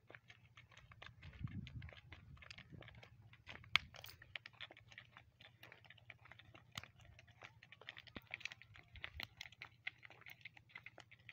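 Faint, irregular clicking and scuffing of donkey hooves and walking feet on an asphalt road, with one sharper click about four seconds in.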